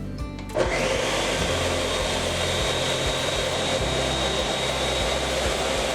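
Countertop blender switching on about half a second in and running steadily at one speed, blending frozen blueberries, Greek yogurt and almond milk into a thick smoothie.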